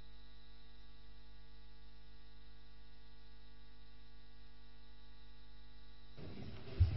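Steady electrical mains hum on the chamber's audio feed, a buzz with many evenly spaced overtones. About six seconds in it gives way to open-microphone room hiss, and there is a short thump near the end.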